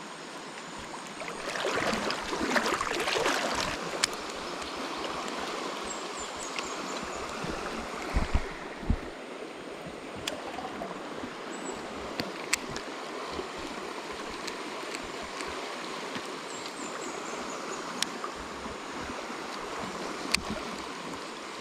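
Mountain stream flowing steadily over rocks, with a louder surge of splashing about two seconds in. A few sharp clicks and some faint high chirps sound over the water.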